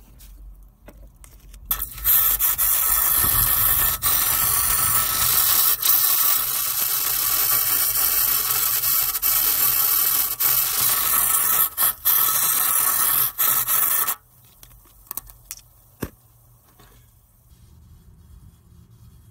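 Aerosol can of Sea Foam Spray hissing steadily through its extension straw into an engine's valve cover. The spray starts about two seconds in, breaks off briefly a couple of times near the end and stops suddenly about fourteen seconds in.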